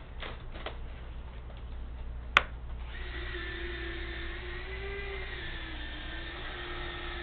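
A sharp click about two and a half seconds in, then a steady, slightly wavering electric whine from the RC jet's electric retractable landing gear running.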